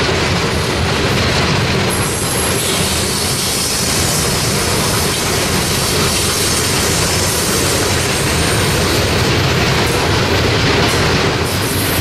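Loaded coal hopper cars of a freight train rolling past, a steady, continuous rumble and rush of steel wheels on rail.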